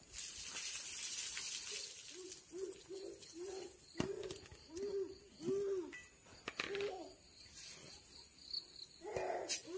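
Water poured from a steel bowl splashes onto grass for about two seconds. Then a bird gives a series of about eight low, repeated hoots, with one more near the end, over a steady high insect trill. A few sharp knocks sound as the bowl is handled.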